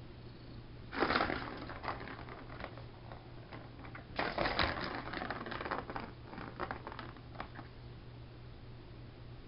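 Ball of a Turbo Track cat toy batted around the plastic track, clattering and rolling in two bursts of rapid clicks, about a second in and again from about four seconds in, with a few single clicks after.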